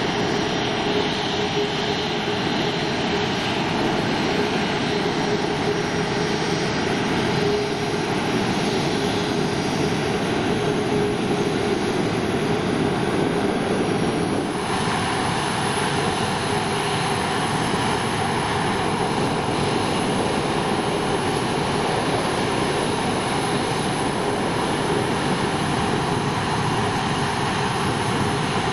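Boeing 737-500's CFM56 turbofan engines running at taxi power: a steady jet rush with a constant whine. The sound changes abruptly about halfway through.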